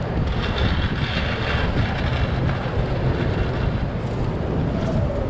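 Steady wind rumble on the microphone of a camera carried by a moving inline skater, mixed with the roll of skate wheels on asphalt. A brighter hiss rises for a second or so near the start.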